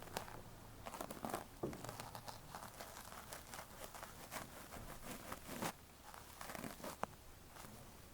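Close-miked ear cleaning: a tool scraping and rubbing inside the ear, making irregular crinkly scratches with scattered sharp clicks, one clear click near the end.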